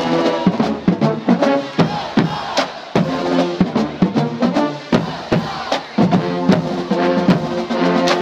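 Marching band playing: held brass chords over a steady beat of drum strokes, the Pearl marching bass drums prominent.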